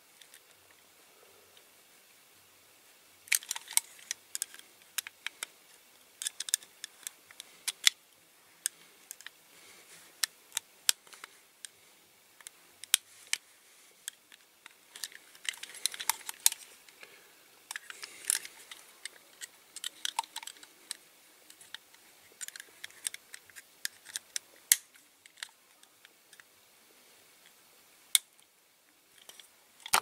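Small screwdriver scraping and clicking against the rivets and metal body of a diecast toy truck as it is worked loose, with the model knocking lightly in the hands. Irregular sharp clicks and scratches come in clusters, with short quiet gaps.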